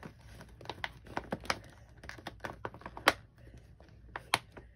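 Wrapped packaging crinkling and crackling in irregular sharp clicks as it is handled and pulled out of a tightly bundled mailing envelope, with the loudest snaps about three seconds in and again just after four.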